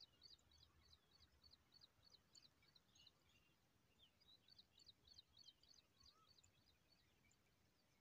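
Faint, rapid, high-pitched begging chirps of nestlings being fed by a parent, about four a second, in two runs with a short break near the middle.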